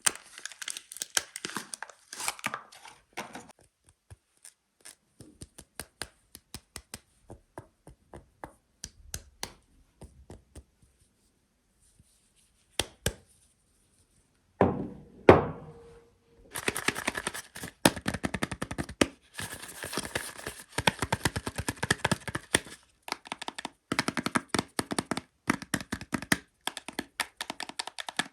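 Soap wrappers being torn open and crinkled, crackling in bursts with short pauses. A single loud thunk comes a little past halfway, followed by dense, steady crinkling.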